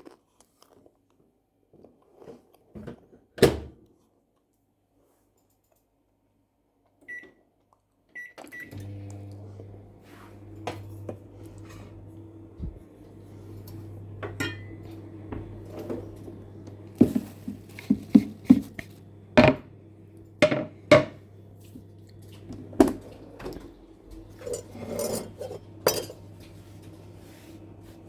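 Microwave oven keypad beeping, once and then twice, before the oven starts and runs with a steady low hum. Sharp knocks and clinks of dishes and utensils sound over the hum.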